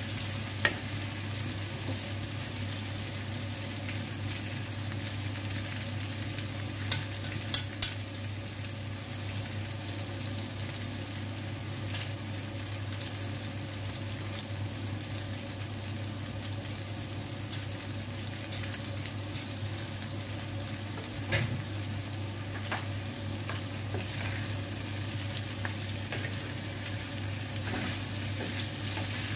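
Chicken pieces and potato slices sizzling steadily as they fry in a pan, with a few sharp clicks of the metal spoon and wooden spatula knocking against the pan as the food is stirred, over a steady low hum.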